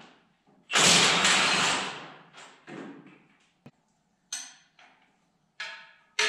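Metal tools and parts clanking during work on a tractor: a loud noisy burst about a second in, then a click and several short metallic clinks that ring briefly.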